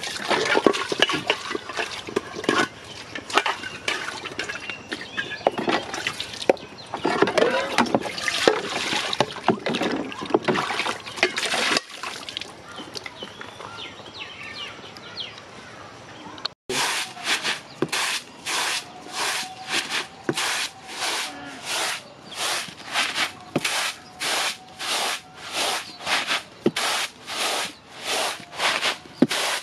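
Water splashing and dishes clinking as they are washed in a water-filled plastic basin. After a cut, grain is shaken and tossed on a round bamboo winnowing tray, making a steady rhythm of about two swishes a second.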